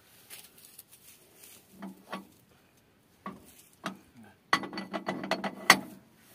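Scattered clicks and knocks of a thick rope being worked around a tractor's metal rear hitch, then a quick rattling run of clicks about four and a half seconds in, lasting over a second.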